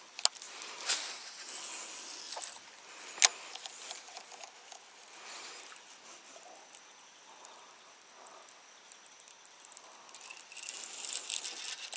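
Handling noise from a baitcasting rod and reel: two sharp clicks, the louder about three seconds in, between stretches of soft rustling hiss, with a denser crackling hiss building near the end.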